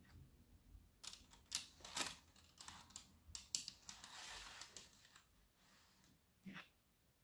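Light plastic clicks and clacks of N scale model train cars being handled and set onto the track, their wheels and couplers tapping the rails. A quick cluster of taps comes between about one and five seconds in, with one more near the end.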